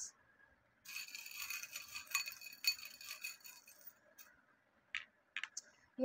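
Small metal charms jingling and clinking together as they are shaken for about three seconds, followed by a few light clicks as single charms drop into a cardboard tray.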